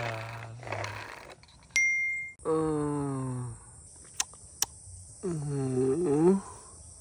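Three drawn-out wordless vocal sounds, the last one wavering down and back up in pitch. A short bell-like ding comes about two seconds in, and two sharp clicks come around four seconds in.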